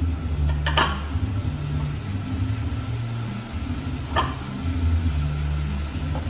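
Two sharp knocks of kitchenware, a wooden spatula and ceramic plates handled beside a cooking pot, about a second in and again about four seconds in, over a low, uneven rumble.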